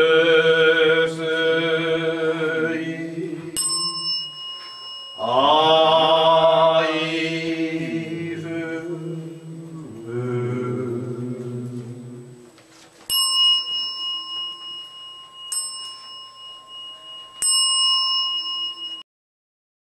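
A man chanting Buddhist verses in long, drawn-out held notes, in two phrases and then a shorter, lower one. An inkin, the small bowl bell on a wrapped handle, is struck once a few seconds in and three more times after the chanting stops, each strike ringing on; the sound cuts off suddenly about a second before the end.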